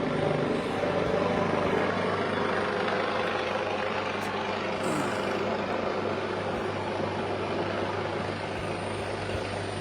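Helicopter hovering, a steady drone of rotor and engine that holds at an even level.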